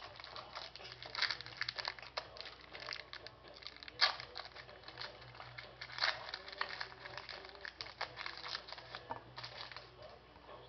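A trading card pack's wrapper being torn open and crinkled in the hands: a dense run of crackles and snaps, the sharpest about four seconds in.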